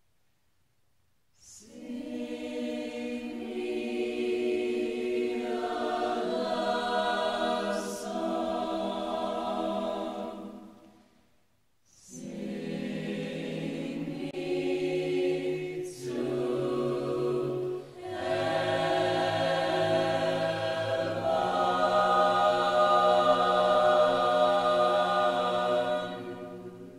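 Choral music: a choir singing slow, held chords in long phrases, with a short break about eleven seconds in, ending just at the close.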